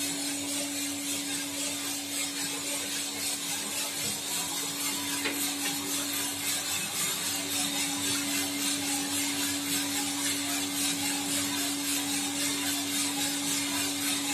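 A Suprito 3.5 kg drum coffee roaster running: a steady motor hum over an even rushing noise from the machine, with the freshly charged beans turning in the drum.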